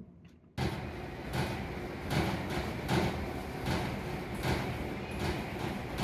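Gym treadmill thudding: heavy booming knocks about every three-quarters of a second as a large man runs on it, over steady background noise. It is an unusual noise that the listener suspects means the treadmill is broken.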